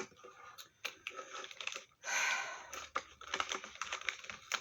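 Light clicking and tapping of small objects and packaging being handled, with a short rustle of paper or plastic about two seconds in.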